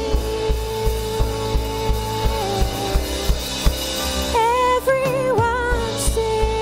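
Band music: a drum kit keeps a steady beat under long held keyboard chords, with a brief wavering melody line about four seconds in.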